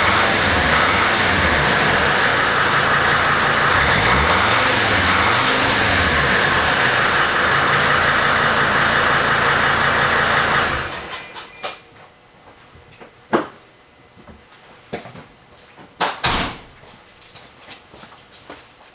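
A 2005 Dodge Sprinter's turbodiesel engine is run hard at high revs and heard right at the tailpipe, a loud hissing exhaust rush with the revs swinging up and down. About eleven seconds in it dies away within a second as the engine stops. A few faint clicks and knocks follow.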